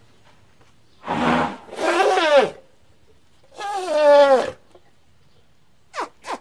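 Elephant calls: three loud calls with a clear pitch, each bending downward at its end, then two very short falling squeaks near the end.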